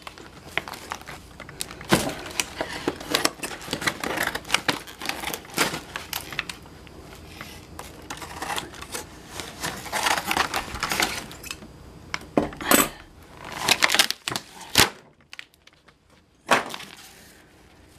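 Clear plastic blister packaging crinkling and crackling as hands pull it and peel off packing tape, with many irregular snaps and clicks and a short pause near the end.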